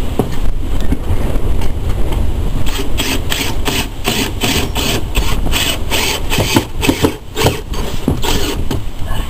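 Wind rumbling on the microphone throughout. From about three seconds in, a run of quick, evenly repeated mechanical strokes, about three a second, goes on for some six seconds and then stops.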